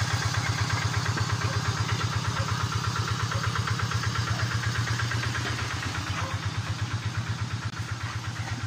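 A small engine idling with a steady, even throb of about eight beats a second, slowly getting fainter over the last few seconds.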